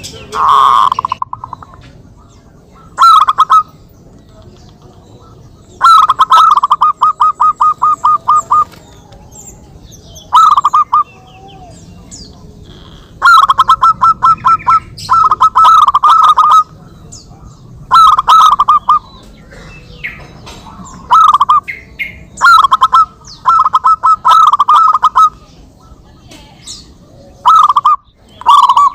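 Zebra doves (perkutut) cooing, answering one another: about a dozen rolling phrases of quick repeated coo notes, some brief and some drawn out over two or three seconds, with short pauses between them.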